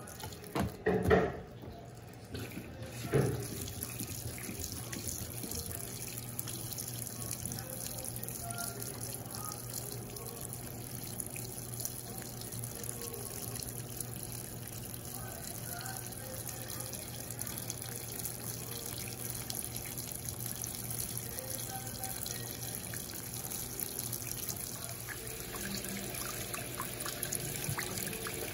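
Electrolux Turbo Compacta top-loading washing machine filling its tub: a steady stream of water running in through the inlet, over a steady low hum. A few knocks in the first few seconds.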